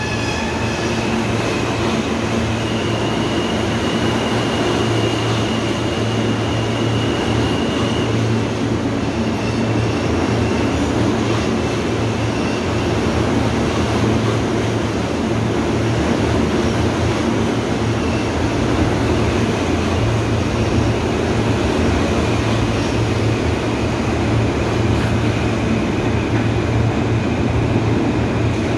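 Alstom-built R160A subway train pulling out of the station, its cars rolling past with a loud steady rumble. A high whine runs from about two to eight seconds in.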